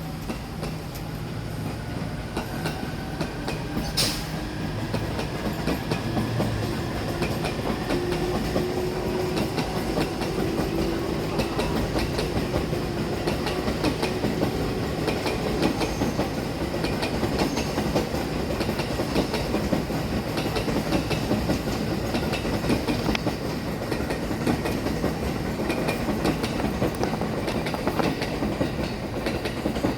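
Electric commuter train pulling out of a station platform. The motor whine rises slowly in pitch as the sound grows louder, and a sharp click comes about four seconds in. The wheels then click steadily over the rail joints.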